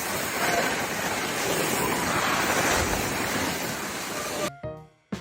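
Steady rushing noise, of the kind wind on a microphone or water makes, cut off about four and a half seconds in by music with a drum beat.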